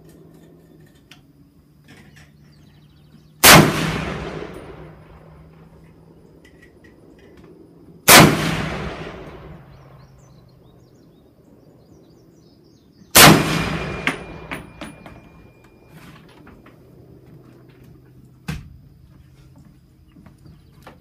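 Three single shots from a scoped M1 Garand .30-06 rifle, about five seconds apart, each with a long fading echo. A few light clicks follow the last shot, and a single sharp knock comes near the end.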